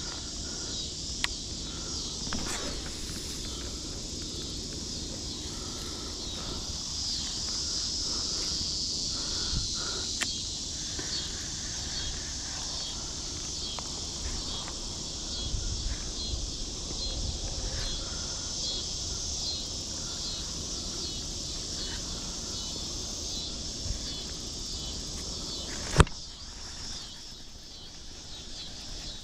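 Steady insect chorus buzzing in a high band, with a sharp click near the end.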